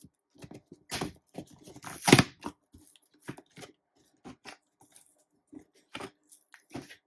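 Cardboard box being torn open and its packaging handled: irregular rips, rustles and knocks, the loudest a short tear about two seconds in.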